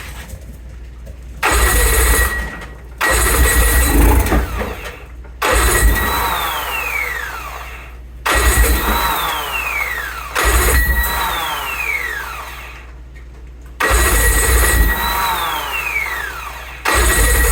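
Evinrude E-TEC 90 two-stroke outboard cranked over again and again, about seven tries, each a second or two of cranking that fails to catch: a no-start. Most tries end with a whine that falls steeply in pitch.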